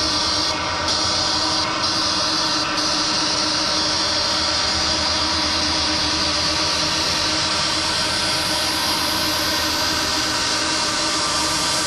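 Steady droning soundtrack of held tones over a continuous hiss, the hiss growing brighter over the last few seconds.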